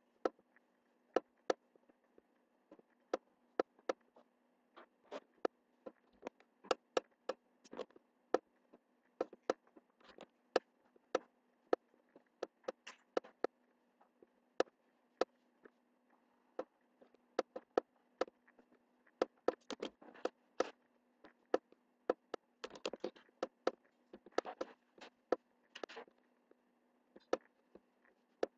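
Computer mouse buttons clicking: single sharp clicks at irregular intervals, closer together in quick clusters from about two-thirds of the way in, over a faint steady hum.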